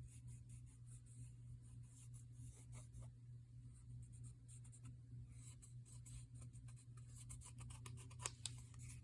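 Faint, quick scratchy dabs and rubs of green colour being worked onto the edges of a paper craft piece, growing thicker in the second half, with one sharper click near the end, over a low steady hum.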